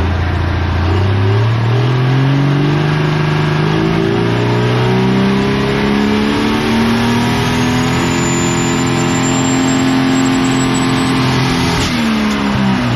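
Diesel pulling tractor engine revving up over the first few seconds and held at high revs, with a high turbo whine rising above it, then dropping back off about 12 seconds in.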